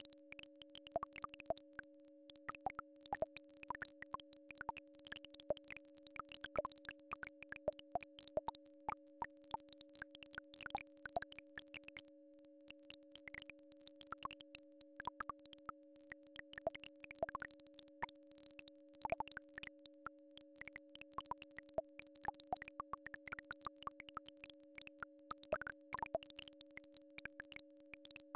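Two steady electronic tones from a healing-frequency track, a lower one and a fainter higher one, held unchanged. Many quick soft clicks and pops fall irregularly over them, several a second.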